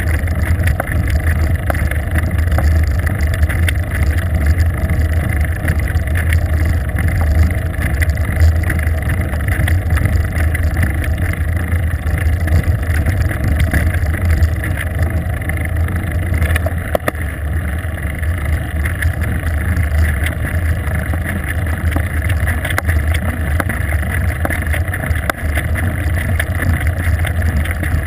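Steady low rumble of wind and road noise on the microphone of a bike-mounted GoPro camera, while a bicycle rides along a paved road.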